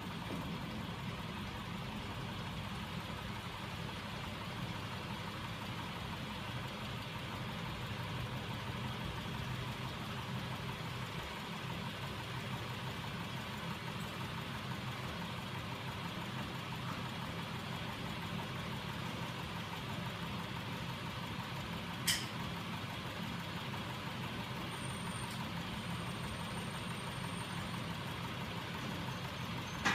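Homemade magnet-coupled crankshaft machine, driven by small DC electric motors, running steadily with a continuous mechanical hum and whirr. A single sharp click sounds about two-thirds of the way through.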